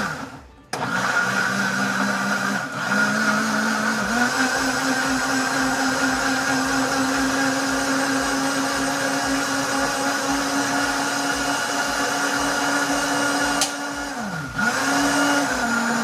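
Britânia BLQ1280P 1150-watt blender motor chopping pineapple, started and stopped in short bursts and then run steadily. It winds down and restarts twice in the first few seconds, speeds up about four seconds in and holds there for about ten seconds, then stops and gives one last short burst near the end.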